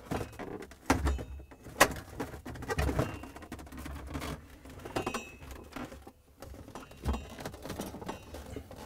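A refrigerator's plastic rear cover panel being fitted back into the compartment. Irregular clicks, knocks and scraping of plastic on plastic as its bottom tabs are worked into place, with the sharpest knocks about one and two seconds in.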